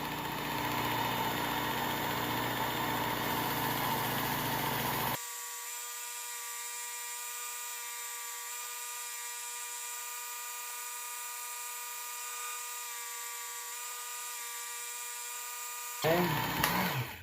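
Work Sharp belt sharpener's electric motor running with a leather strop belt while a knife edge is power-stropped. About five seconds in, the sound drops abruptly to a thinner steady whine, and a louder short burst comes near the end.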